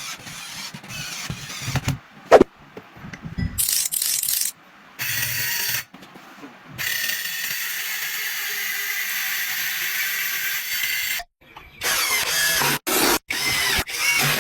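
A power tool running in short bursts that cut in and out abruptly, the longest a steady run of about four seconds in the middle with a thin high whine.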